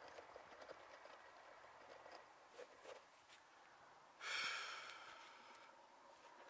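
A person's breathy exhale, close to the microphone, starts suddenly about four seconds in and fades over a second or so. Otherwise near silence with a few faint clicks.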